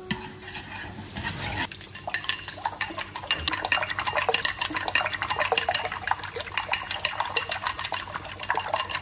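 Eggs being beaten with chopsticks in a ceramic bowl: rapid clicking of the chopsticks against the bowl, starting about two seconds in.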